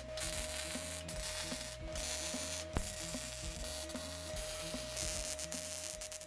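Electric arc welding on a steel angle-iron frame: a steady crackling hiss from the arc, cut by a few short breaks. Background music with a steady bass line plays underneath.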